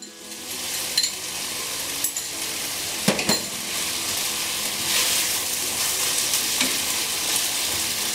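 Glutinous rice sizzling as it stir-fries in a non-stick pan, the sizzle swelling about a second in as oyster sauce goes into the hot pan. A wooden spatula scrapes through the rice and knocks against the pan, with the loudest knocks about three seconds in.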